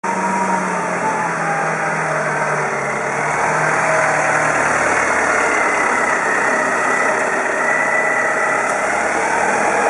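Clark 5-tonne forklift's engine running steadily as the truck drives along and turns.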